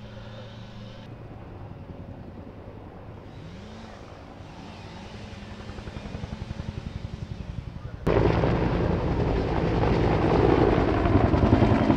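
A motor running with its pitch rising and falling, then, about eight seconds in, a sudden loud roar of a firefighting air tanker flying low over the slope during its drop.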